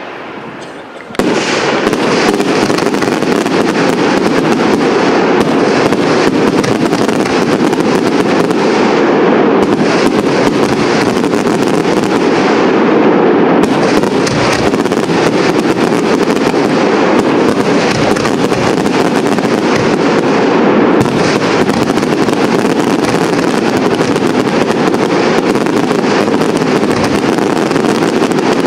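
Fireworks display: about a second in, a dense, unbroken crackling of many small reports starts suddenly and keeps going without a pause.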